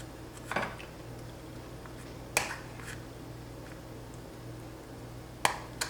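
Four short, sharp clicks of kitchen utensils tapping against a dish or pot as butter is added: one about half a second in, one in the middle and two close together near the end. A steady low hum runs underneath.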